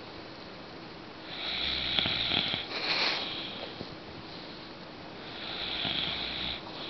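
A sleeping woman snoring: two long snoring breaths, one starting about a second in and the next near the end.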